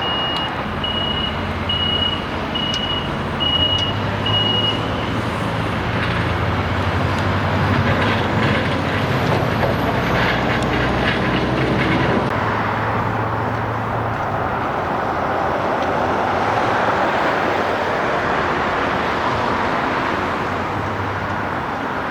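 Steady heavy-vehicle engine and traffic noise with a low hum, and a construction vehicle's reversing alarm beeping about once a second for the first five seconds.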